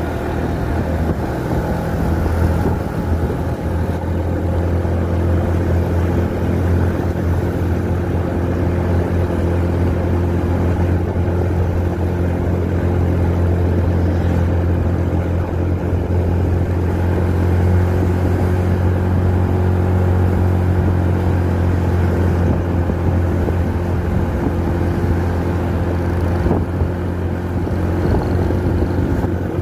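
Motorcycle engine running steadily while riding, heard from the rider's seat: a low, even hum.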